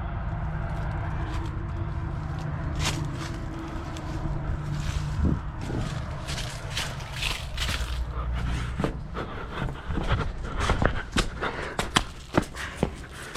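Scuffing, scraping and irregular knocks, like footsteps and handling noise, over a steady low hum that fades after the first half.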